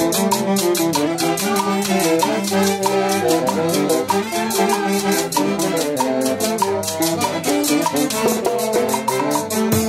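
Live Andean festival orchestra playing: harp, violin and trumpets over a drum kit with cymbals, with quick, even percussion strokes.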